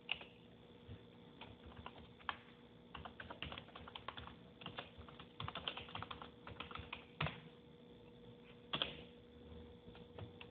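Computer keyboard typing: runs of quick keystrokes, densest in the middle, with a few louder single clicks near the start and about 7 and 9 seconds in.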